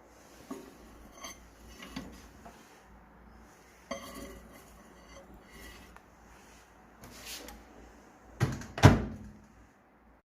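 Kitchen items being handled, with light clicks and clatter, then two loud knocks close together about eight and a half seconds in.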